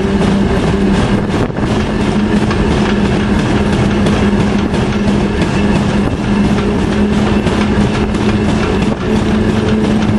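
Train cab noise while rolling along the track: a loud, steady drone with a constant low hum from the train's machinery over the running noise of wheels on rails.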